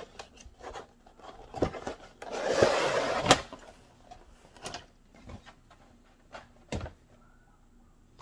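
Cardboard lid of a model-kit box sliding off its base with a second of rushing friction, ending in a sharp knock. A few soft knocks of the box being handled come before and after.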